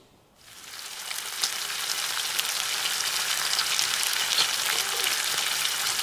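Bacon strips sizzling in a cast-iron skillet, a steady frying hiss with fine crackles that fades in about half a second in and then holds steady.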